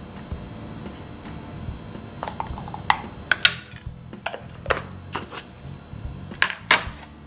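Small glass spice jar clinking and knocking as pepper is tapped out of it onto a plate, then the jar set back down on a tray: a run of sharp irregular clicks starting a couple of seconds in.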